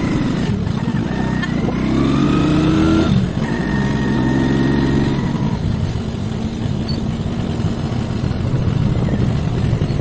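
Small scooter engine running while being ridden: its pitch rises for the first few seconds, dips briefly about three seconds in, holds steady, then gives way to a steady low rushing of road and wind noise after about five and a half seconds.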